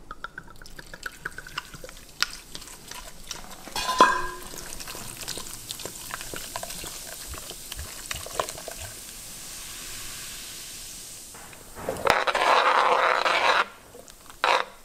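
Dark stout poured from a glass bottle into a cast iron Dutch oven of stew meat and vegetables, a soft steady pouring hiss with small clicks and one sharp clink about four seconds in. Near the end a spoon stirs and scrapes loudly in the pot.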